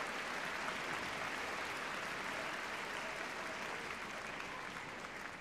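Audience applauding, a steady even clapping that slowly fades toward the end.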